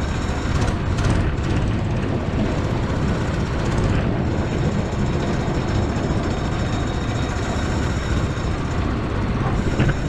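A 420cc Predator single-cylinder four-stroke engine running steadily, driving the amphibious ATV boat along under its own power.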